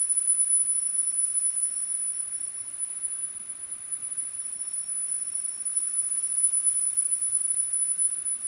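Steady high-pitched 10 kHz test tone played back from cassette on a Pioneer CT-W205R deck during head alignment, its level wavering a little as the deck is adjusted.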